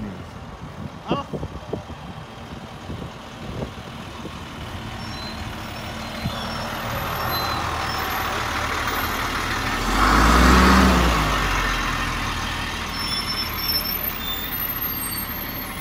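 Diesel box truck's engine running as it moves close by, swelling to its loudest about ten seconds in and then fading, over a few scattered knocks early on.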